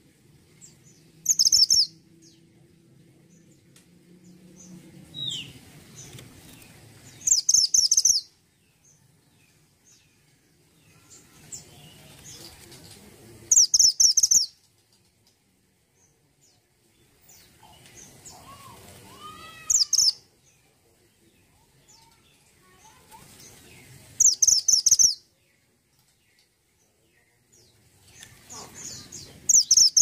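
Caged mantenan gunung songbird singing in short, loud bursts of rapid high chirping notes, repeated about every six seconds, six times. Fainter chirps and a low hum sit between the bursts.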